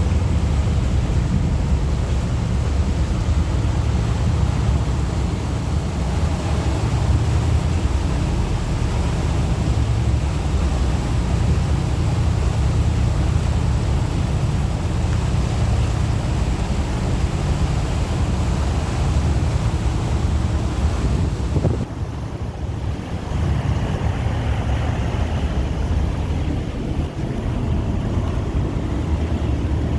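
Motorboat underway: a steady engine and hull rumble with water rushing past and wind buffeting the microphone. About 22 seconds in the sound briefly turns duller and dips, then carries on as before.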